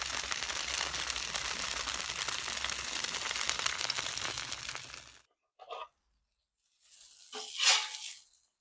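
Buttered tortilla quesadillas frying on a Blackstone flat-top griddle: a steady sizzle that cuts off suddenly about five seconds in. Two brief sounds follow near the end, the second the louder.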